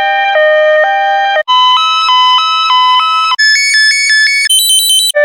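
Two-tone hi-lo ambulance siren sound effect, alternating between two notes. It jumps up in pitch in steps (about a second and a half in, again past three seconds, and once more at four and a half seconds, where it turns very shrill), alternating faster as it rises, then drops back to its original pitch just before the end.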